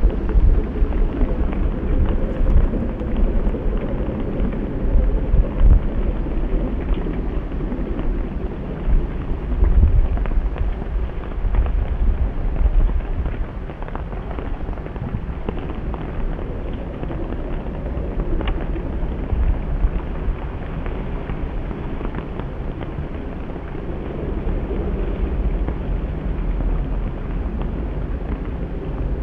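Low, gusty rumble of wind buffeting the microphone over the running of a canal motorboat's engine, louder in the first half and easing about halfway through.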